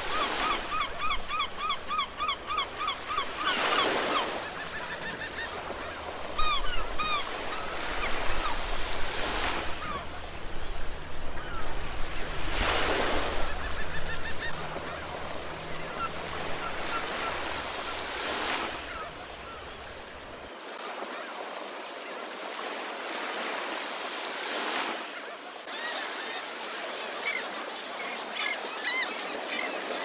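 Gulls calling over surf: a rapid run of repeated yelping calls, about four a second, for the first few seconds, then scattered single calls. Waves break and wash onto the beach every four to six seconds.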